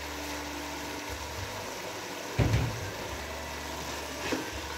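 Spaghetti and chicken masala frying in a pot, sizzling as a wooden spatula tosses the noodles, over a steady low hum. A louder clunk comes about two and a half seconds in.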